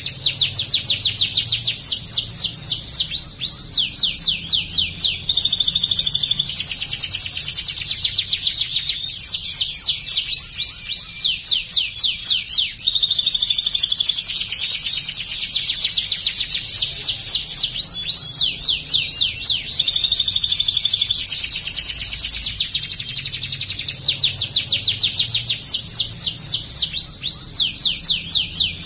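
White domestic canary singing a long, nearly unbroken, high-pitched song of fast rolling trills. Its song carries mimicked ciblek (bar-winged prinia) phrases, the 'material' it has been trained on.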